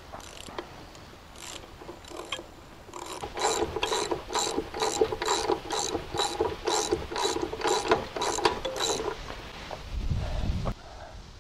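Ratchet wrench clicking in a steady run, about three to four clicks a second, as the bandwheel tracking bolt on a Norwood HD38 band sawmill is turned to bring the wheel out into line with the other one. A dull knock near the end.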